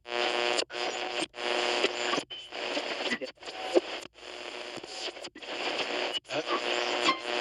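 AM radio being tuned across the dial: static hiss and crackle with brief snatches of broadcast audio as stations pass. The sound cuts out briefly every second or so as the tuning moves on.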